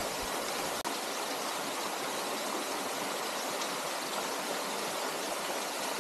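Small waterfall rushing steadily: an even hiss of falling water, with a brief break just under a second in.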